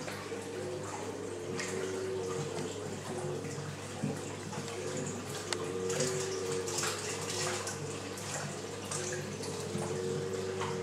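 Water running and splashing in a large reef aquarium's circulation, over a steady low hum from its pumps.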